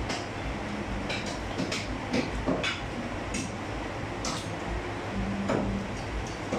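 A butcher's knife clicking and tapping against meat and a wooden chopping block while a calf's hind leg is cut apart: a scatter of sharp clicks, most in the first four or five seconds, over a steady low background hum.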